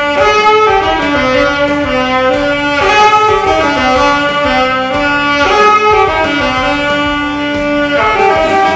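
Saxophone playing a melodic horn line of held notes that change every half second or so, with more than one part sounding at once in harmony.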